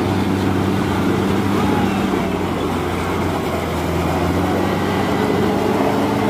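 Daihatsu Taft diesel 4x4 engine running steadily, a continuous low drone, as the vehicle works its way out of a shallow river crossing.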